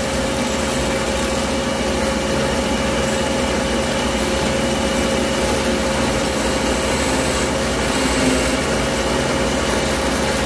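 Taurus 3 diamond-plated ring saw running steadily with a constant hum while a thick dichroic glass pendant is held against the blade and carved.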